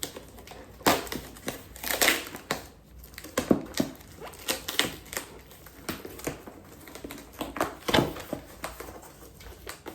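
Packaging crinkling and rustling as it is handled and opened, in short irregular crackles and clicks.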